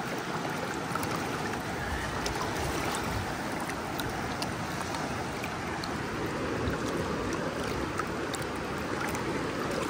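Steady rush of a shallow creek flowing over rocks, with water washing through a plastic gold pan dipped and swirled at the water's edge. A few faint clicks sound here and there.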